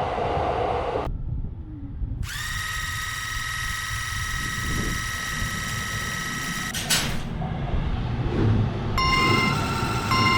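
Railway level-crossing warning alarms, all electronic tones. An alternating alarm cuts off about a second in. A steady high tone then sounds for about four and a half seconds, a click follows, and a beeping alarm starts near the end, all over a low rumble.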